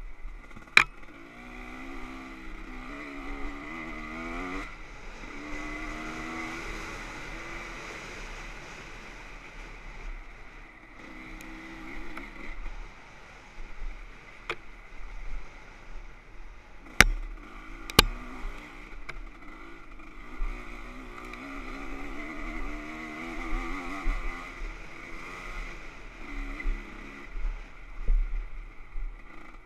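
Dirt bike engine revving up and down repeatedly as it is ridden over rough trail, mixed with wind noise. There are sharp knocks about a second in and twice close together past the middle.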